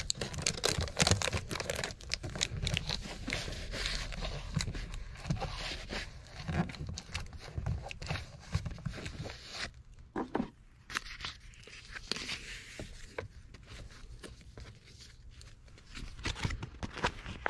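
Foil tape being torn, peeled and rubbed down by hand onto foil-faced duct board, with irregular crinkling and scraping of the foil and a short pause about ten seconds in.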